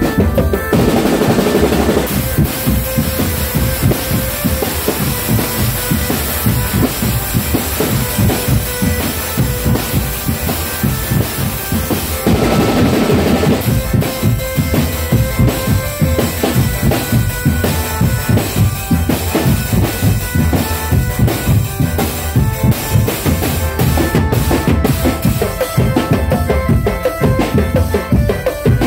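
Drum band playing fast, dense drumming on bass and snare drums, with a steady held note over the beat and two brief brighter swells, just after the start and about twelve seconds in.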